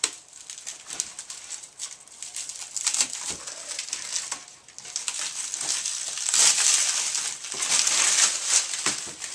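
Plastic stretch-wrap film being peeled and pulled off a wheel: a run of crinkling and crackling that grows busiest and loudest from about six seconds in.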